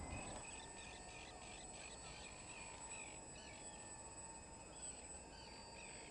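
Small birds chirping in quick runs, thickest over the first few seconds. Under them is a faint steady whine from the model flying boat's brushless electric motors as it taxis on the water.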